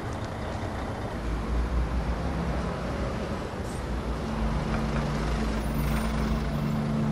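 Road traffic on a busy street: buses, trucks and cars passing, with a heavy vehicle's low engine rumble from about a second in. A steady low hum joins about four seconds in.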